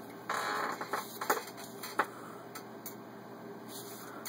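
Stiff vinyl upholstery layers rustling as they are pulled out from under the sewing machine's presser foot: a brief rustle near the start, then two sharp clicks less than a second apart.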